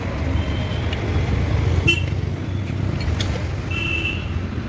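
Street traffic: a steady low rumble of passing vehicles with a few short horn toots.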